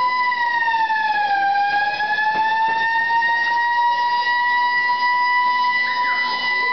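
Alarm siren for a civil defence drill, sounding a loud, steady single tone. About a second and a half in, the pitch sags slightly, then it climbs back and holds. Faint voices can be heard under it near the end.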